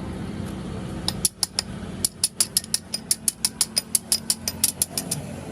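A quick run of sharp mechanical clicks, about six a second, starting about a second in and stopping near the end, over a steady low hum.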